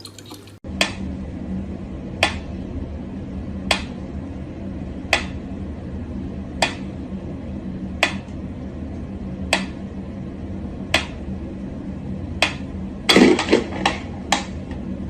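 Sharp, clicking taps repeating evenly about every second and a half over a steady low hum, then a quick flurry of louder knocks near the end.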